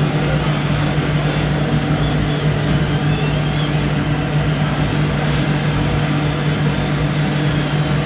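Steady low engine-like drone from a radio-controlled Volvo six-wheel dump truck as it raises its tipper body and tips out its load of soil.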